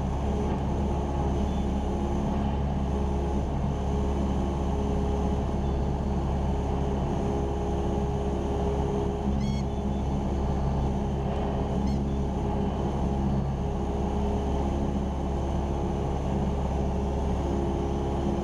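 Cessna 172R Skyhawk's four-cylinder Lycoming engine and propeller droning steadily at cruise power, heard inside the cockpit.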